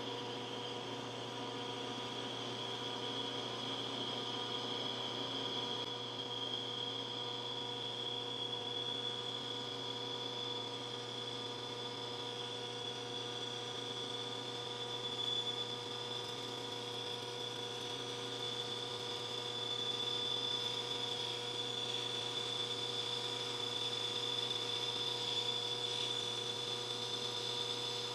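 Machine tool running through a metal cut with a carbide radius insert: a steady hum with a high whine that rises slightly in pitch over the first few seconds.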